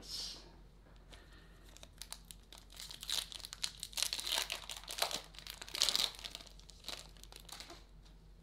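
Foil wrapper of a 2013 Topps Update baseball card pack being torn open and crinkled by hand. The crackling builds about two seconds in and is loudest in the middle, then dies away as the cards are pulled out.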